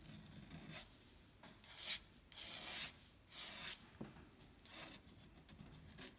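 A pen nib scratching across drawing paper in a series of short ink strokes, each lasting under a second, with brief pauses between them.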